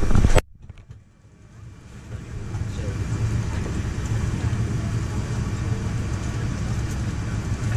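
Steady low rumble of cabin noise inside a Boeing 787-10 airliner on the ground. The sound drops away abruptly about half a second in, then builds back up over the next two seconds.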